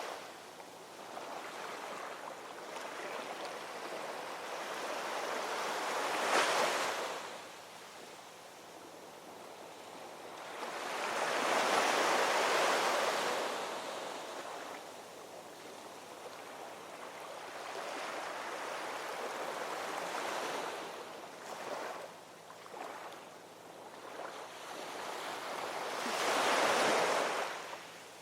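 Waves washing in, a steady rush of water that rises and falls in slow surges, with three louder swells.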